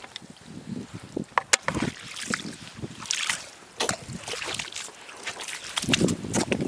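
Scattered sharp clicks and short rustles of shells and sand being handled while gathering washed-up razor clams, then wind buffeting the microphone near the end.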